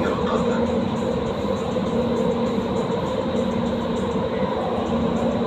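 Doha Metro Gold Line train running steadily through a tunnel, heard from inside the front car: an even rumble of the running train with a constant hum under it.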